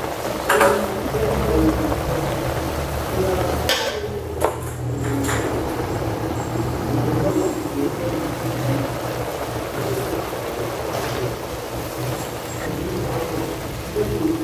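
Cabbage, meat and sauce sizzling in a wok, with a metal lid and spatula knocking against the pan a few times as the pan is covered and stirred.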